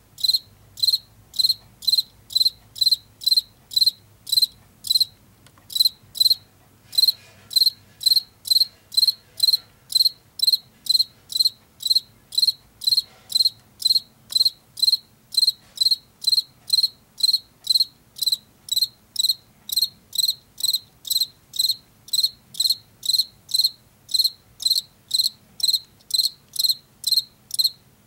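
Male field cricket chirping its calling song: short high chirps at an even rate of about two a second.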